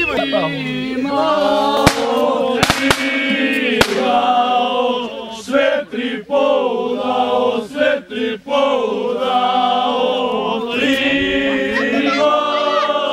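A group of men singing or chanting together in unison, long held notes from many voices at once. A few sharp cracks cut through the singing within the first four seconds.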